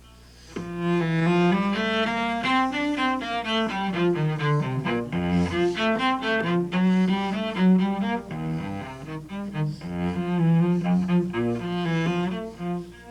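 Solo cello playing a quick, flowing passage of many short notes, starting about half a second in.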